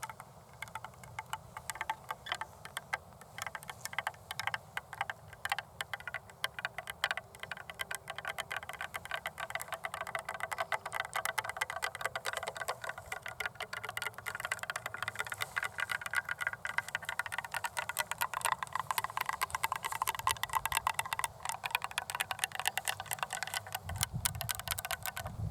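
Long fingernails tapping and scratching in a fast, dense patter of sharp clicks, with more scratching in the second half.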